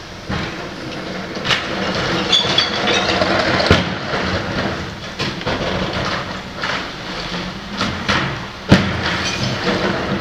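Rear-loader refuse truck running steadily while blue recycling carts are tipped into its hopper: repeated bangs and clatters of carts knocking the hopper edge and recyclables tumbling in, the loudest bang near the end.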